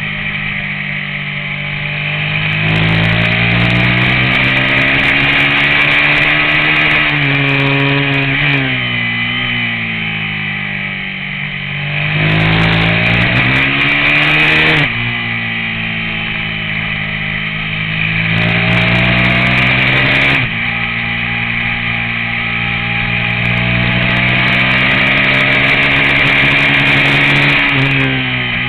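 Race motorcycle engine heard from a camera mounted on the bike. The engine note climbs and falls repeatedly as the bike accelerates out of corners and slows into them, with sudden drops in pitch about 15 and 20 seconds in.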